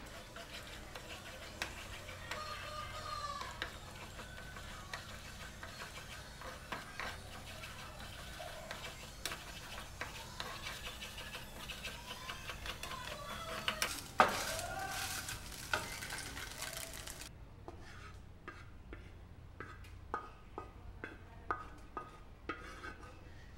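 Eggs sizzling in a nonstick frying pan while a wooden spatula stirs and scrapes them, with many light clicks and one sharper knock. About 17 seconds in the sizzle stops, and the spatula scrapes the scrambled egg out onto a steel plate with a series of taps and clinks.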